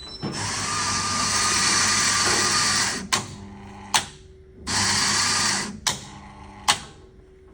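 Coffee vending machine's grinder motor running for about three seconds, grinding a test coffee dose, then a click, another click, and a second shorter run of about a second, followed by two more clicks from the doser mechanism.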